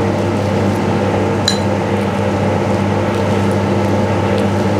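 A steady, low machine hum, with one light clink about one and a half seconds in.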